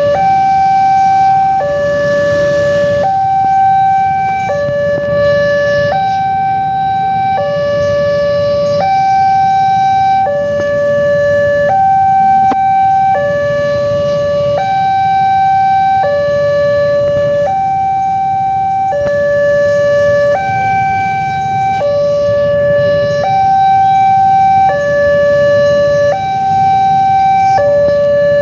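Railway level-crossing warning siren sounding a two-tone hi-lo alternation, switching pitch about every second and a half, over a low background rumble. It is the new replacement siren fitted after the crossing's old one broke.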